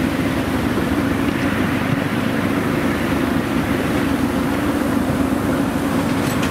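Ride-on miniature railway train running along its track, heard from on board: a steady rumble of the locomotive and wheels on the rails.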